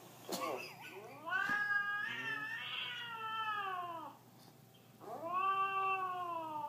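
Siamese cat yowling: a short call at the start, then two long drawn-out calls, each rising a little and then sliding down in pitch, the second beginning about five seconds in.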